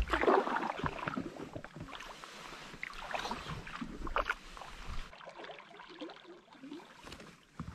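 Canoe paddles dipping and splashing in lake water in irregular strokes. The sound gets quieter and thinner about five seconds in.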